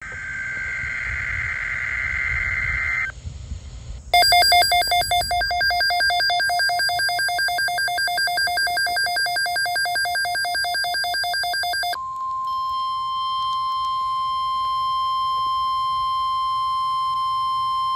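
Emergency Alert System flood-watch tones. A screechy two-pitch SAME digital header burst lasts about three seconds. After a short gap comes about eight seconds of rapidly pulsing electronic alarm beeping. Then the steady single-pitch NOAA Weather Radio attention tone sounds.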